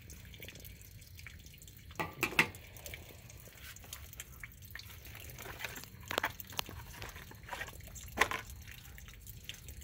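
Water running and dripping out of a slit in an above-ground pool's vinyl liner, with a few sharp clicks and knocks from handling, the loudest about two and a half seconds in and near the end.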